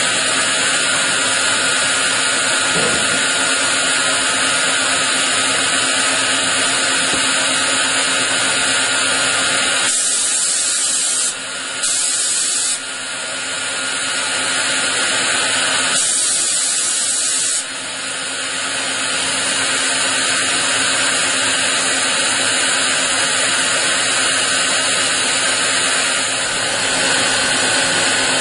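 Multi-spindle CNC machine cutting a brass workpiece: a steady whine of spindles and cutting noise. Twice, about ten and sixteen seconds in, the sound turns thinner and hissier for a second or two.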